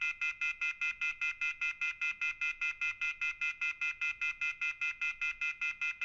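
Rapid electronic beeping: a bright, multi-tone beep pulsing evenly about six times a second without a break.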